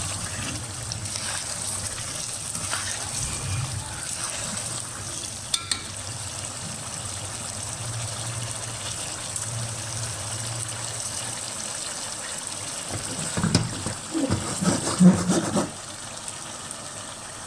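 Chicken green masala sizzling in oil in a pan while it is stirred through the final bhuna stage, close to fully fried. Near the end come a few louder knocks and scrapes of the spoon against the pan.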